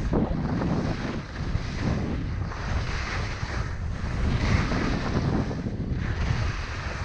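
Wind buffeting a GoPro's microphone during a fast ski descent, mixed with the hiss and scrape of skis turning on firm, tracked snow, swelling and fading with each turn.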